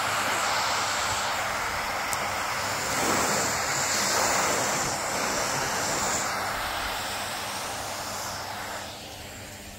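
Vacuum cleaner running, its hose nozzle sucking carbon-fibre drilling dust and chips out of the roof-rail channel; the sound falls away near the end.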